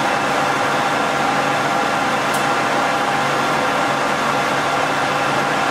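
Colchester lathe running under load, turning down a free-machining hex bar with about a 2 mm cut on the diameter, chips peeling off easily. Steady machine hum and gear whine over a hiss of cutting.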